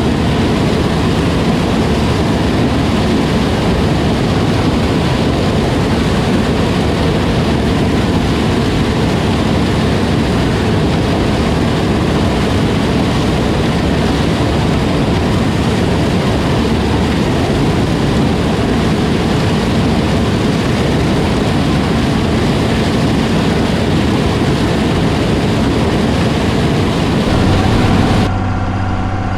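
John Deere 9500 combine running steadily while harvesting corn, its engine and threshing machinery making a dense, even noise. About a second before the end the sound changes abruptly to a steadier engine hum with a clear pitch.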